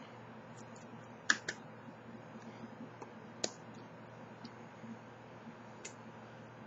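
A few sharp taps from hands meeting while signing: a loud one just over a second in, a softer one right after, another about halfway through, and a faint one near the end, over a steady low hum.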